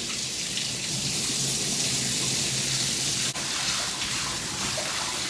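Water running steadily into a tub, filling it for a dog bath, with a brief break about three seconds in.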